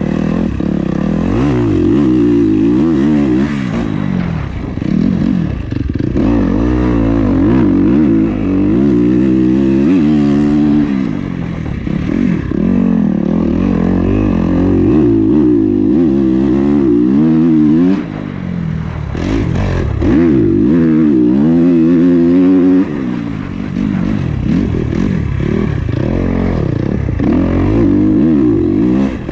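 2021 Kawasaki KX250's four-stroke single-cylinder engine under riding load, revving up and falling off again and again as the throttle opens and closes through corners and straights, with brief drops in loudness where the throttle is shut.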